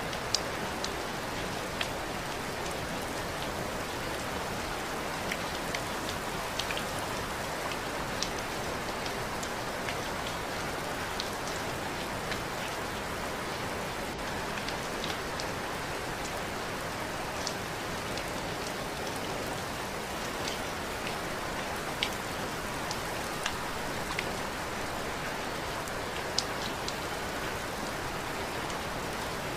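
Steady rain falling, an even hiss with scattered sharper drops tapping close by.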